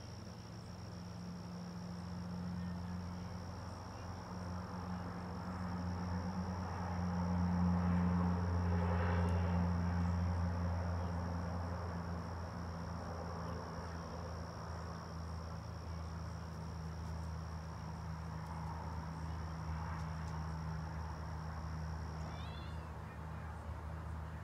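An insect holds one steady, high-pitched trill that cuts off suddenly near the end, followed by a few short chirps. Under it a vehicle's low engine hum swells to its loudest about eight seconds in and then eases off.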